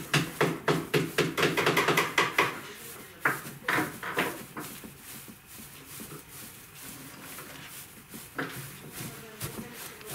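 Hands teasing and spreading loose crin stuffing fibre over the burlap of an upholstered sofa seat. There is a quick run of dry rustling strokes for the first couple of seconds, then a few separate rustles and quieter handling.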